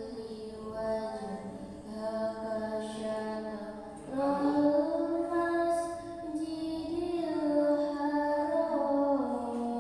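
A girl reciting the Qur'an in the melodic qiro'at style, drawing out long held notes that slowly rise and fall. A new, higher and louder phrase begins about four seconds in.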